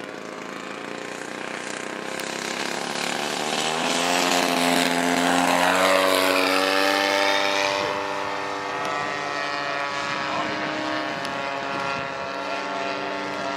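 The 26cc petrol engine of a radio-controlled Ryan STA model plane in a fly-by. Its buzz grows louder to a peak about six seconds in, drops in pitch as the plane passes, and then carries on steadily further away.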